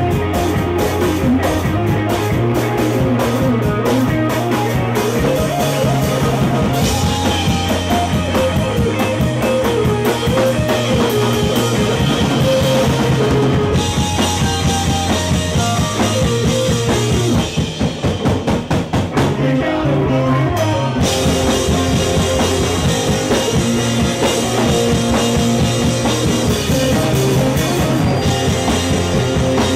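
Live rock band playing loud on drum kit and electric guitars. Midway the sound thins for several seconds, then the full band comes back in.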